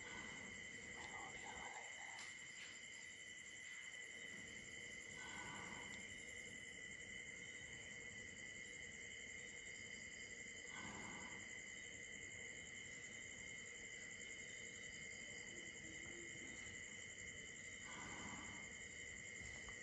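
Crickets chirping in a steady, high-pitched night chorus, with a few short, soft rushing sounds several seconds apart.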